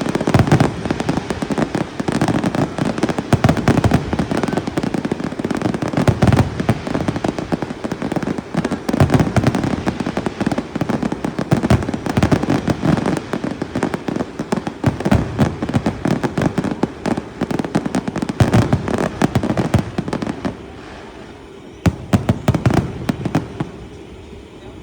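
Fireworks going off in a rapid, continuous barrage of bangs and crackles, dying down to a short lull near the end.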